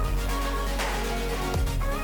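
Electronic background music with a heavy bass beat and sweeping hits.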